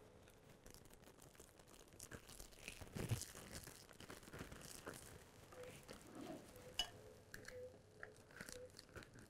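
Faint crinkling and rustling of a clear plastic sous vide bag being handled and opened, with a single light click late on.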